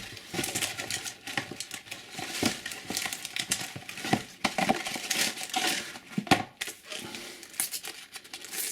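Crinkling and rustling of a Panini sticker pack wrapper and stickers being handled, with irregular crackles and short sharp snaps.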